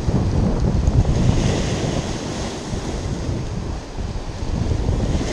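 Rough sea surf breaking and washing over shoreline rocks, with strong wind buffeting the microphone in a low rumble.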